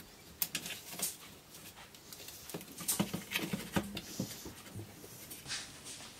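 Irregular light clicks and knocks of a home-built airgun's metal barrel and air-cylinder assembly being handled and seated into its wooden stock, in two clusters.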